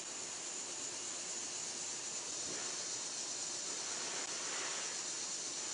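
Steady, quiet hiss of background noise with no distinct events.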